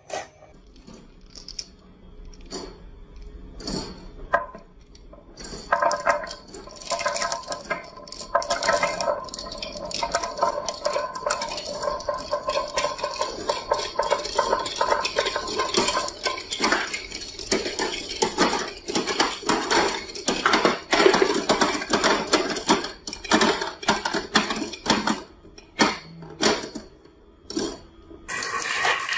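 Many glass marbles rolling down wooden marble-run tracks and clicking against one another and the plastic game board in a dense, irregular clatter. It is sparse at first and grows busy about five seconds in.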